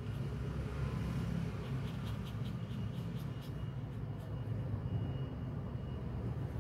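Steady low background rumble, with a short run of faint light clicks about two seconds in.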